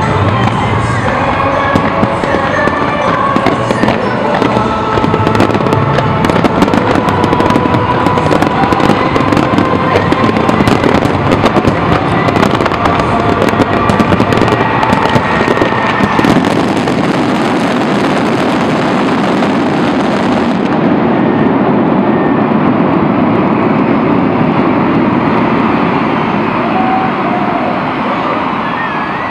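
Fireworks display: a dense barrage of rapid crackles and bangs that thins out after about sixteen seconds, leaving a steady wash of noise.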